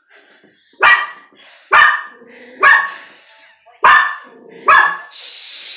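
A Pomeranian barking: five sharp, loud barks in a steady rhythm, a little under a second apart. A brief hiss follows near the end.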